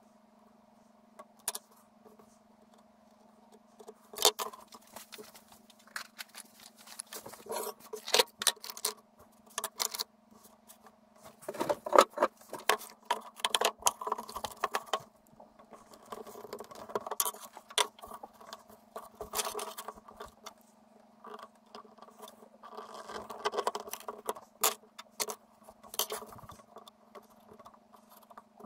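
Leather belt end being worked by hand with a leather tool on a wooden board: irregular scrapes, rustles and sharp clicks of leather and tools being handled on a workbench, starting a few seconds in, over a steady low hum.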